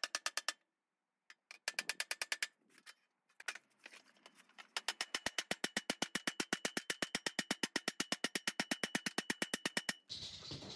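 Rapid, even hammer taps along the rim of a thin pressed-metal casing lid, each with a faint metallic ring. The taps come in two short runs and then a long steady run. The edge is being beaten outward to clear the circuit board underneath.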